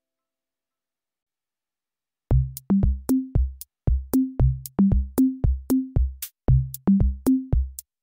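Near silence, then about two seconds in, electronic background music starts: a drum-machine beat with short bass notes climbing in a repeated three-step pattern.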